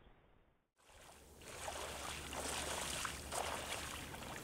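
A person in waders wading through shallow creek water, each stride a splashing swish, at roughly two or three steps a second. It starts about a second in, after a brief near-silent gap.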